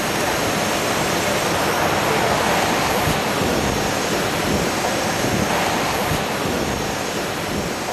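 Steady rushing noise of a Boeing 767-300 in flight, airflow and engine noise heard on the flight deck.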